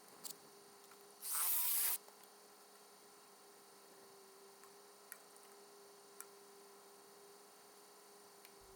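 Faint steady hum, with a short hiss lasting under a second about a second in and a few faint ticks.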